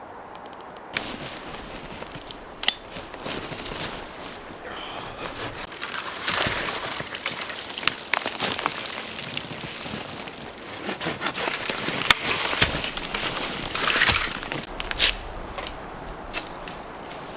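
Crunching of snow and twigs with scattered sharp snaps of breaking sticks, irregular and growing busier from about six seconds in.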